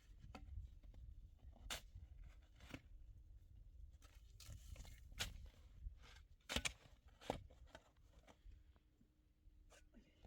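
Quiet room tone with scattered short clicks, crunches and rustles of something being handled. The sharpest click comes about two-thirds of the way through.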